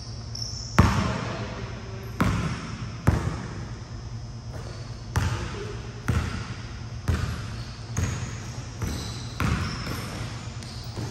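A basketball bouncing on a court: about ten irregular thuds roughly a second apart, each with a short ring-out, over a steady low hum.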